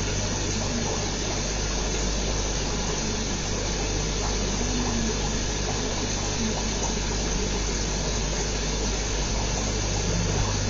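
Aquarium aeration and filtration running steadily: a constant low electric hum under an even rush of bubbling water.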